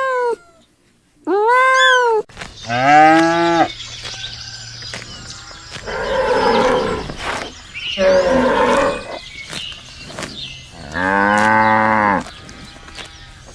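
A kitten meowing twice in the first two seconds, then four deep, drawn-out animal calls over a noisy background. The longest calls come about three seconds in and near the end.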